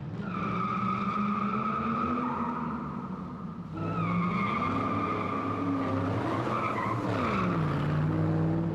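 Car engine running and revving, with a steady high tyre squeal over it; the engine note climbs about four seconds in and drops again near the end.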